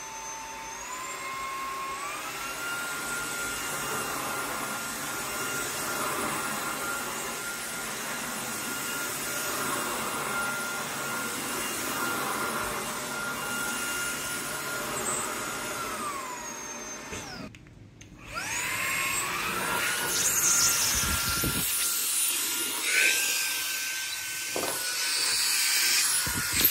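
Halostar cordless stick vacuum's motor spinning up with a rising whine and running steadily on its highest setting. About two-thirds of the way through it winds down and stops, then spins up again a second later.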